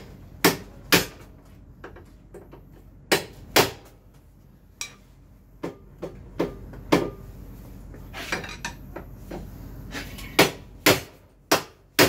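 Hammer blows on a Daelim Citi Ace 100 scooter's steering stem: sharp metal knocks, mostly in pairs about half a second apart, a dozen or so with pauses between. The blows shock and seat the steering stem bearings and nut so the handlebars turn smoothly without play.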